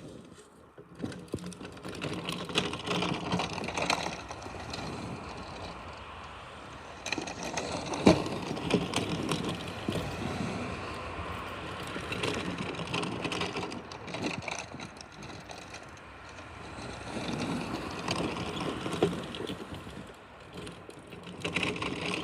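Snow plow blade scraping along a driveway and pushing snow, a rough noise that swells and eases with each push, with one sharp knock about eight seconds in.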